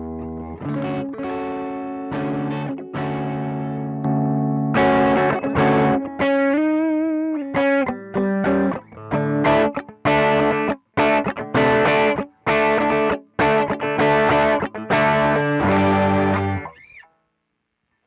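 Electric guitar played through a pedalboard of effects: ringing chords, a held note with wide vibrato about seven seconds in, then a run of short, choppy chords. The last chord dies away shortly before the end.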